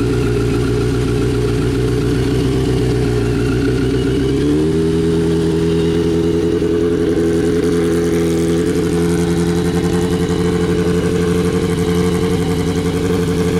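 1986 Yamaha FZX700's inline-four engine idling cold through a Kerker 4-into-1 exhaust with a cut-down half can. About four and a half seconds in, the idle steps up to a higher speed and holds steady as the choke is pulled on.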